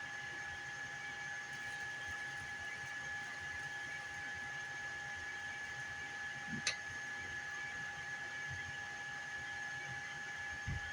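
3D printer running: a steady fan whir with a constant high whine, one sharp click about two-thirds of the way through and a soft thump near the end.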